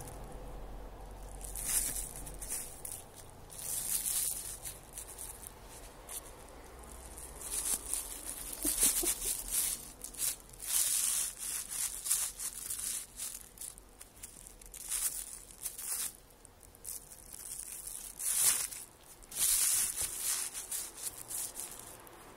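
Thin plastic dog-waste bag crinkling and rustling in irregular short bursts as a cat paws and tugs at it.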